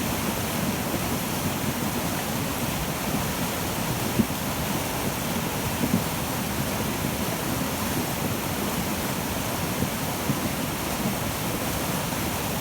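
Glacier-fed meltwater river rushing in a steady, full roar of water, with two brief low knocks about four and six seconds in.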